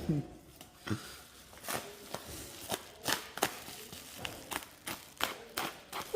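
Irregular sharp clicks and crinkling of a new bike's protective plastic wrapping being cut and pulled off.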